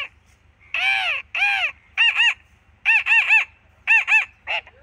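A man imitating a parrot with his voice: two long, arching screeches, then short, sharp calls in quick twos and threes.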